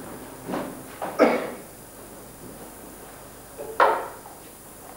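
A man coughing in short, harsh fits: a small cough about half a second in, a stronger one around a second, and a loud one near four seconds. They come just after a swallow of strong spirit.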